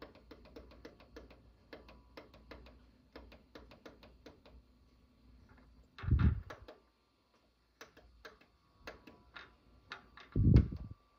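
Plastic front-panel buttons of a Dell CRT monitor clicking over and over as its on-screen menu is stepped through, a few clicks a second. Two dull thumps stand out, about six seconds in and again near the end.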